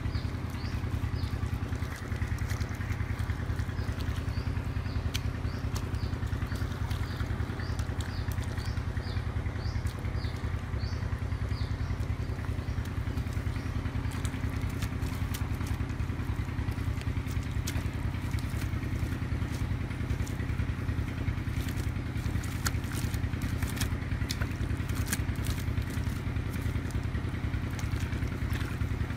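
A small engine running steadily with a low drone. Over it, crackling clicks and scrapes of wet mud being dug and squeezed by hand, mostly in the second half.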